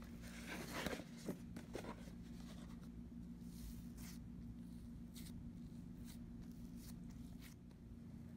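Handling noises as risen dough is tipped out of a plastic tub onto a wooden board: a cluster of plastic clicks and rustles in the first two seconds, the loudest about a second in. Then fainter scattered taps and rubs as the dough is pressed flat by hand, over a steady low hum.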